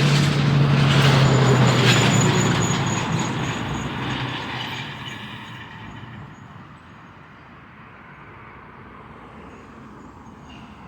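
A motor vehicle passing close by: engine hum and road noise loud in the first couple of seconds, then fading away over the next several seconds.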